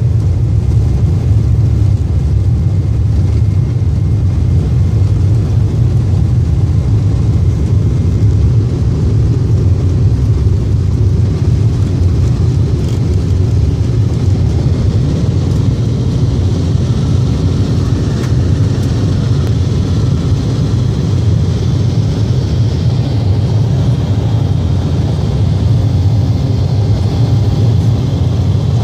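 Jet airliner's engines at takeoff power heard inside the passenger cabin: a steady, loud low rumble, with a higher rushing hiss building from about halfway through as the plane accelerates, lifts off and climbs.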